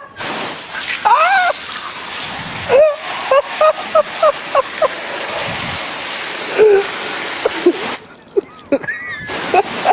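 Wheezing laughter: a run of short, high-pitched squeaky gasps, about four a second, with a few gliding cries, over a steady hiss that stops about eight seconds in.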